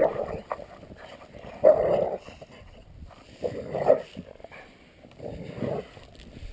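Dogs play-fighting, giving about four short bursts of growling and yipping a second or two apart.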